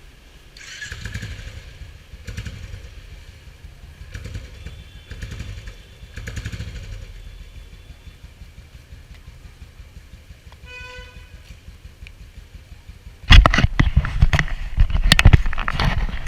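Royal Enfield motorcycle engine running, a low uneven rumble, with a short beep about eleven seconds in. Near the end the sound jumps suddenly to a much louder, rougher engine noise.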